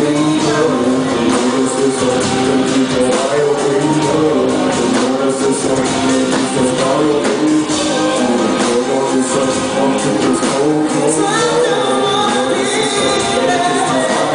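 A live band with a singer performing an R&B song into a handheld microphone, backed by electric guitar and other instruments, playing without a break.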